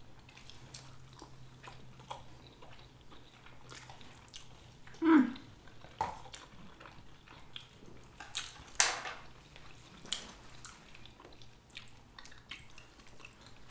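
Close-miked chewing and biting of a sushi meal: scattered small wet clicks and smacks of mouths and food. A short hummed sound about five seconds in.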